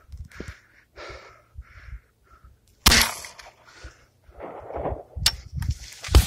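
A shotgun firing once about three seconds in, the loudest sound, with a sharp crack that dies away over about a second. A few more short cracks and thumps come near the end.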